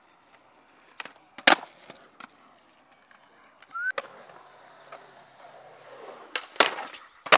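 Skateboard on concrete: sharp board clacks from pops and landings, the loudest about a second and a half in. Wheels roll over the concrete in the second half, with more hard clacks near the end.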